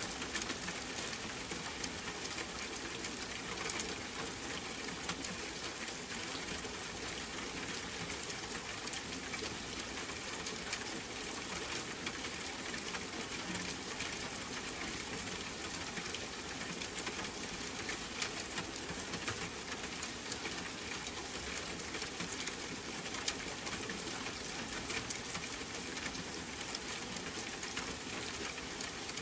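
Steady rain falling: an even hiss with many scattered sharp ticks of individual drops.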